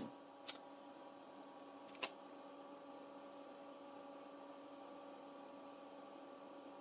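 Near silence: faint steady room hum, with two short faint clicks about half a second and two seconds in.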